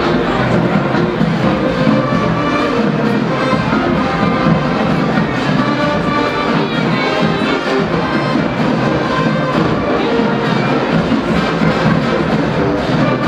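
College marching band playing a loud brass-led number, trumpets and trombones over drums.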